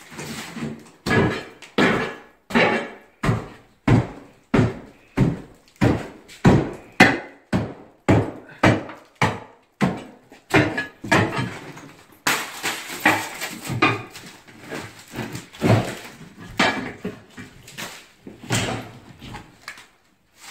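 Hammer blows breaking the ceramic tile and its backing off the wall around a bathtub, about one to two strikes a second. From about halfway the blows come less evenly, mixed with more crumbling and clatter.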